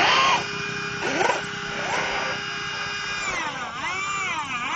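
Electric motor of a radio-controlled speedboat running with a high-pitched whine. There are a few short rising whines in the first two seconds, and the pitch falls and rises several times near the end.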